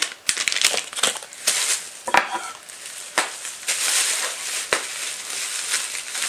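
Plastic packaging crinkling and rustling as it is handled and pulled open, with irregular sharp crackles and snaps.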